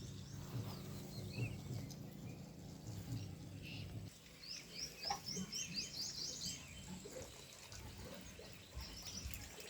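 Birds chirping in the open: a quick run of about eight short, rising chirps about halfway through, with scattered fainter calls. A low steady hum underneath stops about four seconds in.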